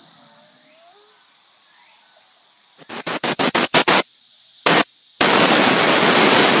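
Blasts of a compressed-air blow gun: about seven short bursts in quick succession, one more short burst, then a long steady hiss of air.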